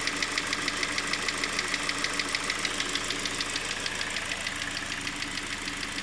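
Engine idling with a rapid, even knock at about nine beats a second. The knock is the engine fault being shown.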